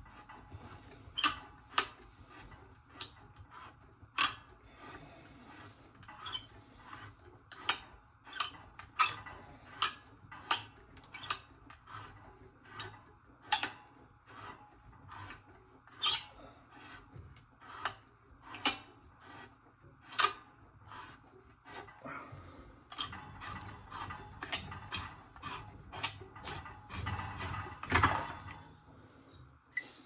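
Tubing cutter being turned around a copper pipe, its cutting wheel scraping the metal with a sharp tick about every half second. A louder scrape comes near the end as the cut goes through. The cutter's blade is getting worn.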